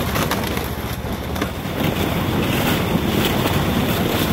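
Snowdog tracked snow machine running under way, its engine and track rumbling as it tows a sled over snow and ice, with wind buffeting the microphone. The rumble grows louder about two seconds in.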